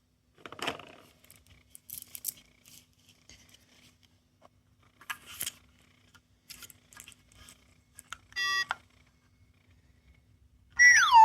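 Small plastic toys being handled, clicking and rattling, then a short electronic beep; near the end a sound-making capsule toy starts a loud electronic siren-like tone that warbles up and down in pitch.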